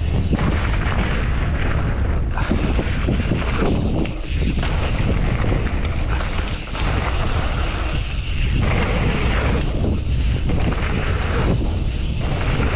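Wind buffeting the microphone of a camera on a mountain bike riding down a trail, a loud rushing rumble that swells and dips, with scattered knocks from the bike over rough ground.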